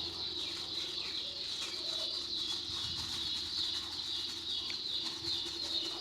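A flock of chicks peeping continuously as a dense, high chirping chorus.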